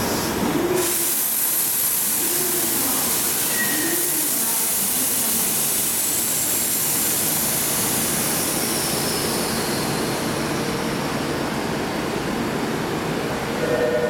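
Subway train noise in an underground station: a steady loud rush with faint high whines that slowly fall in pitch.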